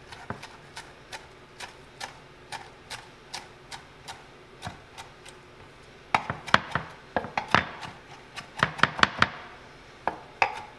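Chef's knife chopping fresh basil on a wooden cutting board: a steady run of light knocks about two or three a second, then faster, louder bursts of chopping from about six seconds in.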